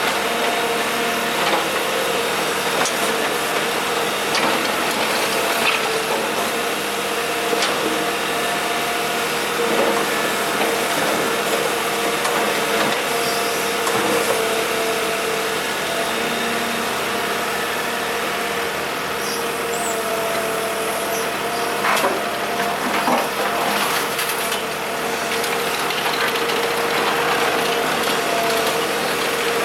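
Kobelco SK125W wheeled excavator running steadily under working load, with a held hum and scattered knocks and scrapes of broken asphalt, two clearer knocks coming a little after the middle.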